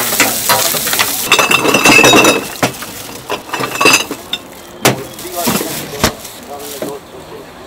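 Pork offal sizzling on a large iron griddle for the first couple of seconds, then glass soju bottles clinking against each other in a chest cooler as one is pulled out, with a few sharp knocks as the cooler's glass lid is closed.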